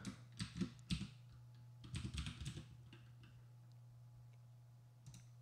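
Faint computer keyboard typing: a short run of scattered key presses over the first three seconds, then quiet, over a steady low hum.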